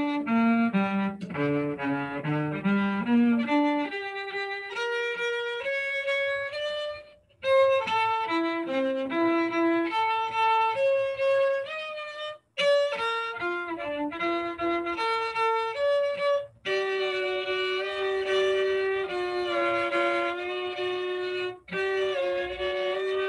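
Solo cello played with the bow through a G minor passage. It opens with a quick run of notes down and back up, then moves into longer phrases of held notes, broken by four short pauses.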